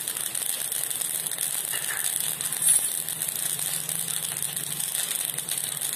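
Mustard seeds crackling and spitting in hot coconut oil for a tempering, a steady dense crackle with one sharper pop about two and a half seconds in.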